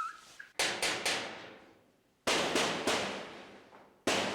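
Loud knocking on a door in three bursts of a few quick blows each, about a second and a half apart.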